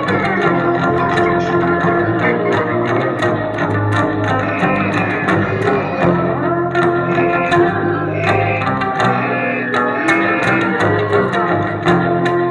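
Electric upright bass played live through effects and a looper: layered, sustained notes building a dense loop, with light percussive clicks riding on top.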